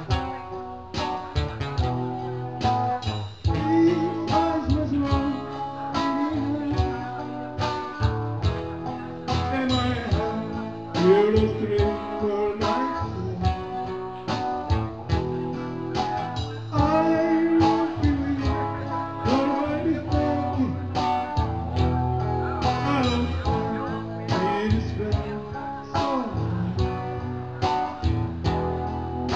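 Live music from a guitar duo: guitar strummed in a steady rhythm, with a melody line gliding up and down over it.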